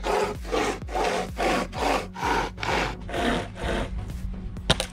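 Overmont pocket hand chainsaw pulled back and forth through wood: the chain's teeth rasp in even strokes, about three a second, stopping about four seconds in. A single sharp click near the end.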